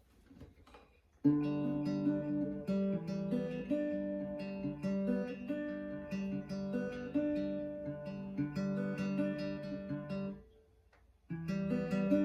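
Acoustic guitar playing a song's instrumental intro, a repeating pattern of ringing chords. It starts about a second in, stops for about a second near the end, then comes back in.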